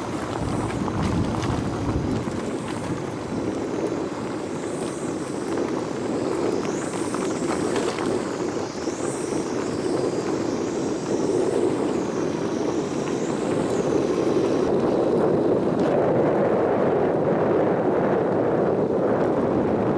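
A vehicle travelling along a rough dirt road, with a steady rumbling noise and wind buffeting the microphone. A faint high warbling whistle rises and falls through most of the first three quarters, then stops.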